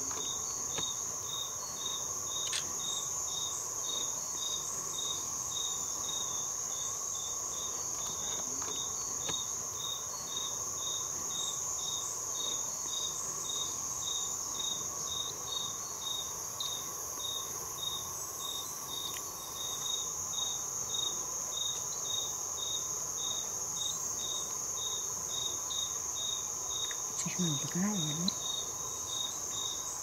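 Steady insect chorus of cricket-like callers: a continuous high shrill buzz over a regular pulsed chirp that repeats a little under twice a second. A short low wavering call sounds near the end.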